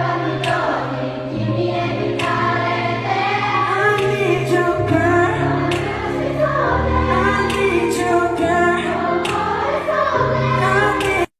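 A crowd of voices singing a song together over backing music, like a concert audience singing along. The sound cuts off suddenly at the very end.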